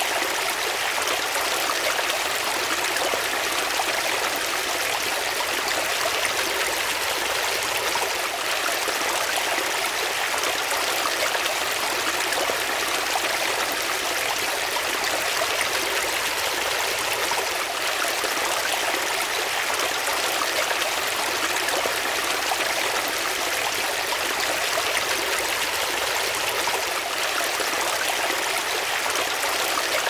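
Shallow stream water running and splashing over rocks in a small cascade: a steady, even rush, bright and hissy, with little deep rumble.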